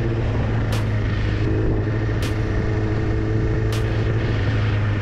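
Sport motorcycle engine running steadily at a constant cruise, heard with road and wind noise from a rider-mounted camera. A brief crisp tick repeats about every second and a half.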